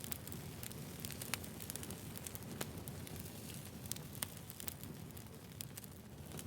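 Campfire burning: a steady low rumble of flames with irregular sharp crackles and pops of the burning wood.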